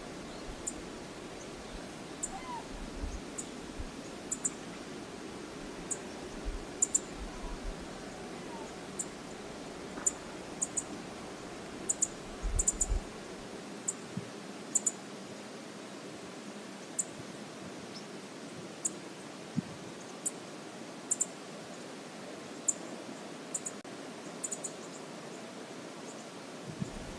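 Steady rush of river water with many irregular sharp, high-pitched ticks throughout and a few low thumps in the first half.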